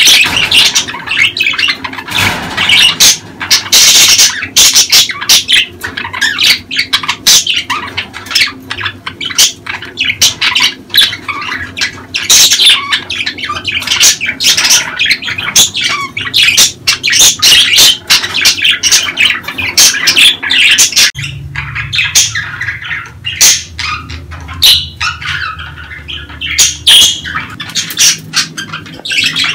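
A flock of budgerigars in breeding-season chatter: rapid warbling chirps mixed with harsh squawks. About two-thirds of the way through, the sound changes abruptly and a low hum runs under the calls.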